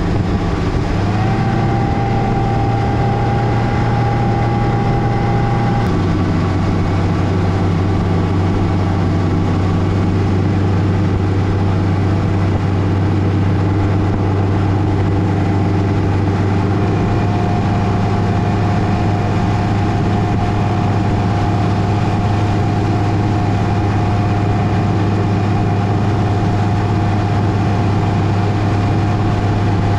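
Bass boat's outboard motor running steadily under way over a rush of wind and water; the engine note shifts slightly about a second in and again about six seconds in.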